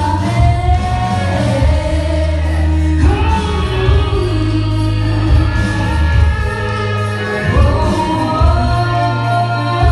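A woman singing live into a handheld microphone over musical accompaniment with a heavy, steady bass. She holds long notes, with slow slides in pitch.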